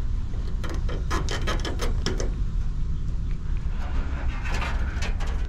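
Gloved hands handling a thin copper freezestat capillary tube against a fan coil's finned coil: runs of small clicks and rustles, over a steady low rumble.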